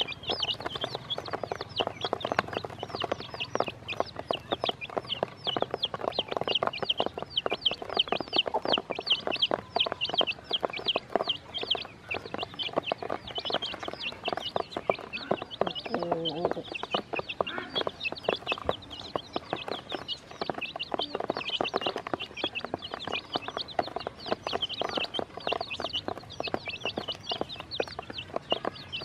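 A flock of baby chicks peeping constantly, many high chirps overlapping, while their beaks tap and click on the plastic basin as they peck at feed. About sixteen seconds in there is one brief, lower-pitched call.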